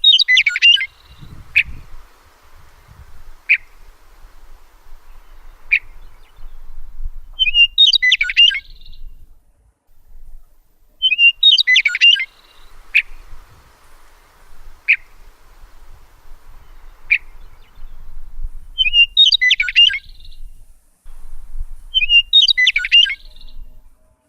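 Songbirds singing: short, quick, jumbled chirping phrases every few seconds, with single sharp chip notes about every two seconds between them.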